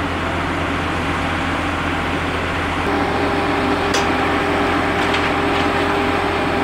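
Boat travel lift's engine and hydraulics running steadily with a low hum; about three seconds in a higher steady whine joins. A few light clicks come about four and five seconds in.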